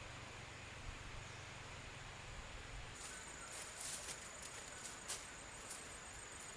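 Faint outdoor sounds with no speech. A low hum runs for the first half, then gives way to a steady high-pitched whine with scattered short crackles, like rustling or steps in dry vegetation.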